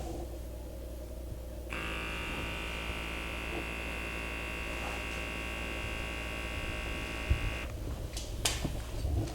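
A small electric device with a motor buzzing steadily, switched on about two seconds in and off near the end, over a constant low hum; a few short knocks follow near the end.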